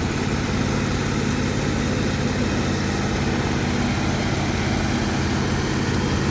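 A large engine running steadily at an even speed.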